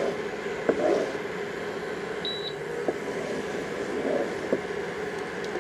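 Wooden spoon stirring thick tomato sauce in a pot, with a few light knocks against the pot, over a steady background hum. A brief high-pitched beep about two seconds in.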